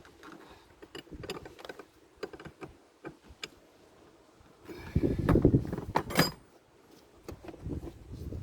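Light metallic clicks and rattles of hand tools and battery terminal hardware being handled, with a louder spell of rattling about five seconds in that ends in a sharp click.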